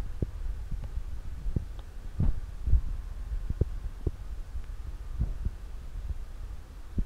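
A kitten's paws patting against a glass sliding door: irregular dull thumps over a steady low rumble.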